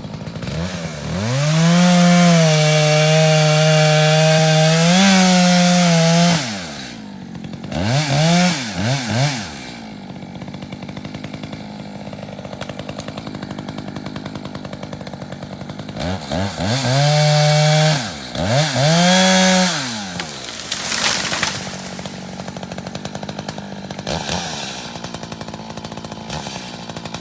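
Echo CS600P two-stroke chainsaw idling, then revved to full throttle in a long run of about five seconds. It drops back to idle with quick throttle blips, then comes up to full revs twice more in shorter runs midway through before settling at idle again.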